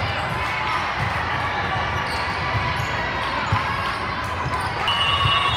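Echoing din of a busy indoor volleyball hall: voices from players and spectators, with balls thudding on the court floor every so often.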